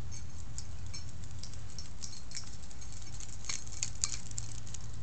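Dachshunds' claws clicking and pattering on a concrete patio as they run: an irregular run of light, quick clicks, busiest in the second half, over a steady low hum.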